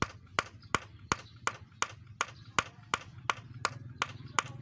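Claw hammer driving a nail into the concrete wall top: a steady run of about a dozen sharp metallic blows, roughly three a second, each with a short ring.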